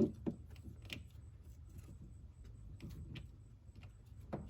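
Scattered light clicks and taps of small metal parts being handled, with a sharper knock at the start and another near the end, over a low steady hum.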